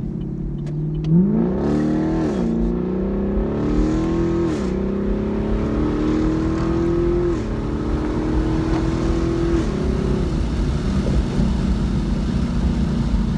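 2017 Chevrolet Camaro SS's 6.2-litre LT1 V8 with an aftermarket axle-back exhaust, heard from inside the cabin under full-throttle acceleration. The engine note climbs in pitch through each gear and drops sharply at four upshifts, then settles into a steady note for the last few seconds.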